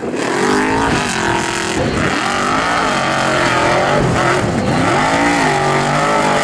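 Formula Offroad buggy's engine revving hard on a steep sand hill climb, its pitch rising and falling again and again as the throttle is worked and the wheels spin in the loose sand.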